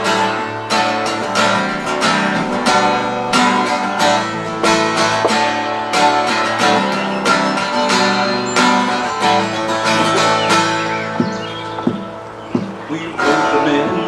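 Solo steel-string acoustic guitar strummed in a steady rhythm, an instrumental break between sung verses of a folk song. It goes softer for a couple of seconds near the end, then picks up again.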